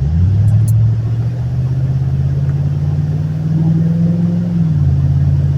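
Vehicle engine accelerating hard. Its low note climbs slowly, then drops at a gear change about four and a half seconds in.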